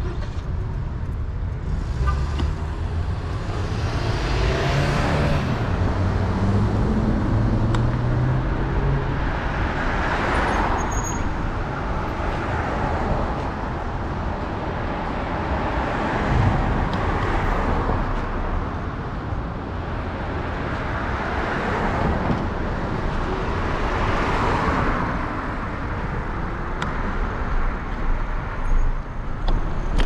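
Urban street traffic heard from a moving electric scooter: cars pass about five times, each a swelling whoosh, over a steady low rumble, with an engine note rising and falling in the first several seconds.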